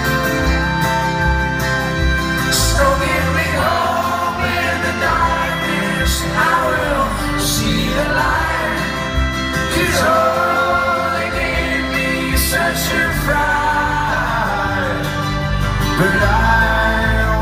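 Live folk-rock band music: acoustic guitar, electric guitar and upright double bass playing, with melodic lines over a continuous low accompaniment.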